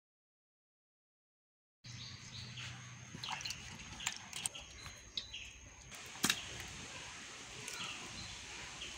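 Silence for nearly two seconds, then quiet ambience with short bird chirps and scattered light clicks, the loudest a sharp click about six seconds in.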